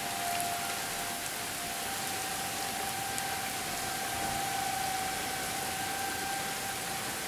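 Distant Federal Signal 2001-series outdoor warning sirens sounding a steady tornado-warning tone, two of them at slightly different pitches near the start. The sirens are heard over the steady hiss of rain.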